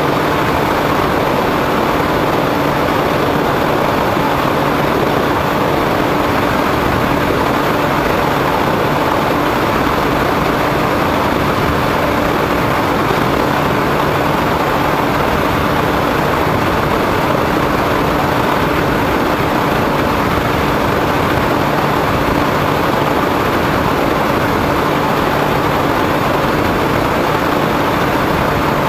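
Steady rush of wind and propeller noise from an RC model airplane in level flight, picked up by the camera on its nose, with a faint steady hum under it.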